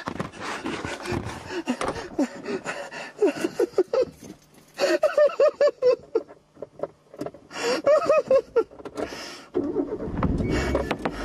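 Strings of short, rapid voiced cries, about four or five a second, come and go twice. Then, near the end, a car engine is started and settles into a low running rumble.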